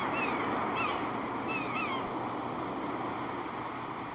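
Birds chirping, short falling calls repeated several times in the first two seconds, over a steady rushing noise that slowly fades.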